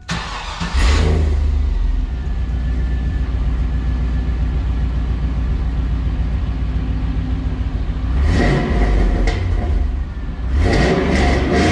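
2002 Camaro Z28's LS1 V8 with long-tube headers and an aftermarket rear exhaust, firing up about a second in and settling into a steady rumbling idle, then revved twice near the end.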